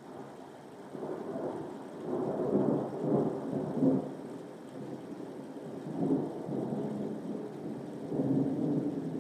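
Thunder rumbling in rolling waves over steady rain. The rumble builds about a second in and is loudest from two to four seconds in, with further rolls around six seconds and near the end.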